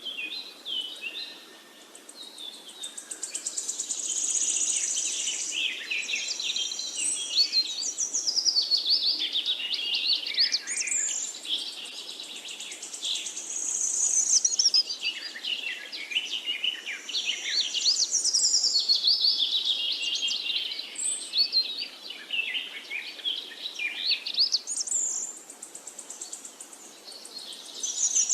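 Forest birds singing and chirping together in a dense chorus of quick trills and whistles, swelling and fading every several seconds, over a faint steady rush of river water.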